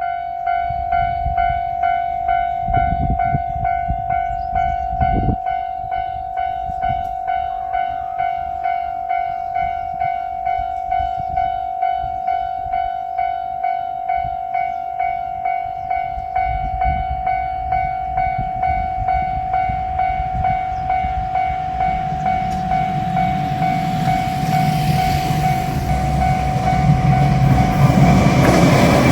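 Japanese level-crossing warning bell ringing its electronic 'kan-kan' tone at about two strokes a second. From about 22 seconds in, the rumble of an approaching limited express diesel train grows and is loudest near the end as the train reaches the crossing.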